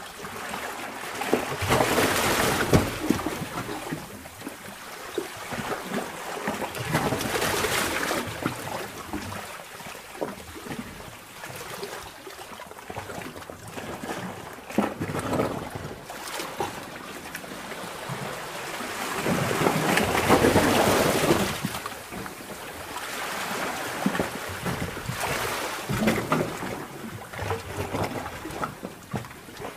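Sea water surging and sloshing in a sea cave: swells rise and fall every five or six seconds, the biggest about two-thirds of the way through, with trickling and splashing between.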